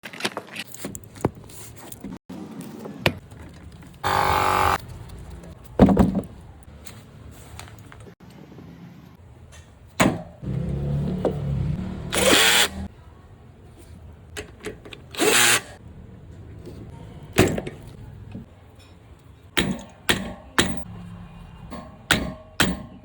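Workshop sounds of hands and tools working on bicycle parts: many separate knocks, taps and clicks of metal parts, with three short hissing bursts about four, twelve and fifteen seconds in.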